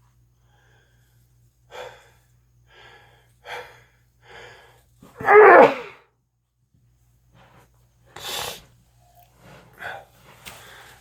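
A person sneezing. Several short gasping breaths build up to one loud sneeze about five seconds in, followed by quieter breaths.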